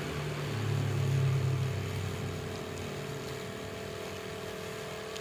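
Reaim 450 W corded electric jigsaw cutting a curve through plywood, its motor and blade running steadily, a little louder for the first couple of seconds. The blade is fairly dull.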